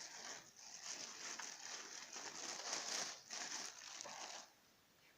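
Packaging crinkling and rustling as it is handled, in irregular bursts that stop about four and a half seconds in.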